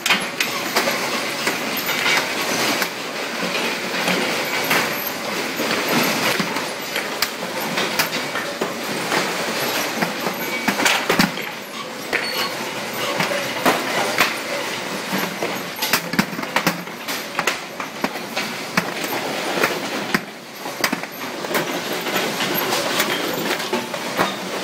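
Belt conveyors of a quicklime sorting line running loaded with lime lumps: a steady mechanical clatter with many sharp clicks and knocks from the lumps and rollers.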